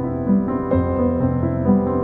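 Background instrumental music, a keyboard melody with new notes every half second or so.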